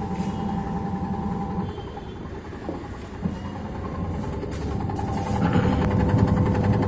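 Samsung WA82VAL top-loading washing machine on its spin cycle, the drum and motor running with a steady hum. It grows louder with a fast, even rattle about five seconds in. The machine is vibrating and making noise, which the owner blames on worn shock absorbers.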